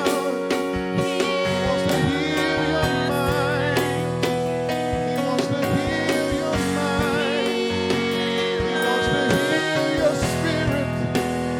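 Gospel music: a voice singing with wavering vibrato over sustained chords and guitar, at a steady level.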